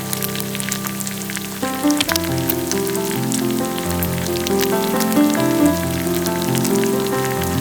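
Background music with held, changing notes over a steady fine crackle like food sizzling in hot oil in a pan.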